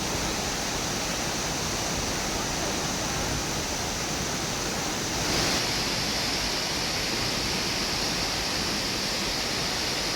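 Waterfall rushing: a steady, even sound of falling water. About five seconds in, it turns slightly louder and brighter.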